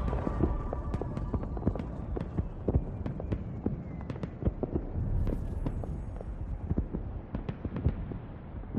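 Scattered, irregular sharp clicks and knocks over a steady low rumble.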